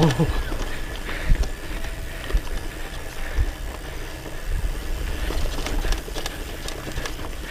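Hardtail mountain bike riding over a rough dirt and gravel trail: wind rumbling on the microphone, tyres crunching and the bike's frame and parts rattling over bumps, with scattered sharp knocks, the loudest about a second in.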